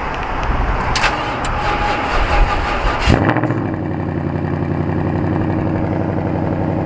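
Ford Mustang GT's 5.0 L V8 cold-starting by remote start in about −25 °C: after a few seconds of wind noise it fires about three seconds in with a quick rise in revs, then settles into a steady high idle.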